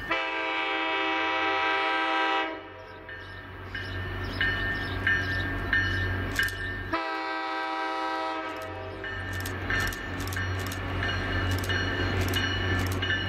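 Air horn of MBTA's EMD GP40-MC diesel locomotive 1120 sounding two blasts as the commuter train approaches: a long one of about two and a half seconds, then after a pause a shorter one. Under and after the blasts a bell rings repeatedly with sharp clicks, and the locomotive's diesel rumble grows as it nears.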